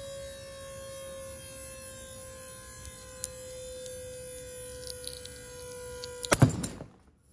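Hydraulic bolt-testing rig under load, a steady hum slowly dropping in pitch, with a few faint ticks as the concrete starts to crack. About six seconds in, a loud sharp crack and clatter as the glue-in bolt, pulled sideways, breaks and the concrete around it spalls off; then the sound cuts off suddenly.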